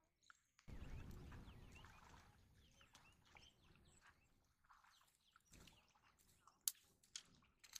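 Faint outdoor ambience. A sudden rush of low noise starts about a second in and slowly fades, with faint bird chirps through it and a few sharp clicks near the end.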